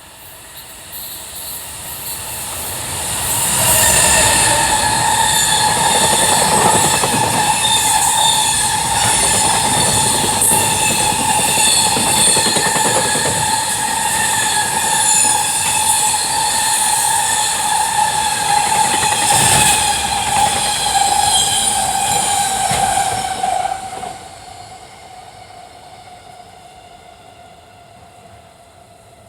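A freight train passing at speed. The rolling noise builds over the first few seconds and holds for about twenty seconds with a steady high whine running through it, then drops off abruptly as the train clears, leaving a fading rumble.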